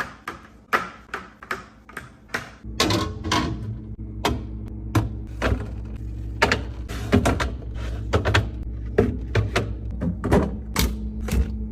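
A quick run of clicks and knocks, about three a second, like containers and packaged food being handled and set down while organizing a refrigerator. From about three seconds in, a steady low hum sits under them.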